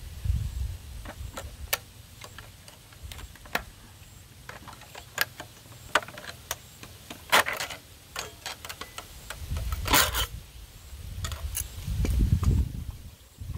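Pliers twisting tie wire around steel rebar: scattered sharp metallic clicks and ticks, with a longer scraping rasp about ten seconds in.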